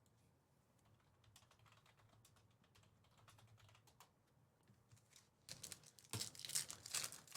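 Faint tapping on a computer keyboard, then, from about five and a half seconds in, louder crinkling of a trading-card pack's foil wrapper being handled and torn open.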